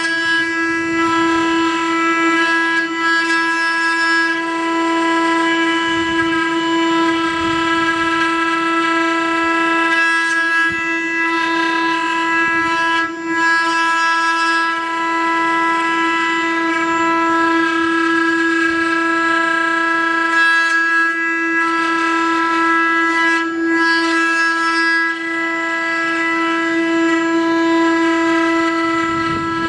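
Multi-head 4-axis CNC wood router running, its spindles giving a steady whine at one unchanging pitch.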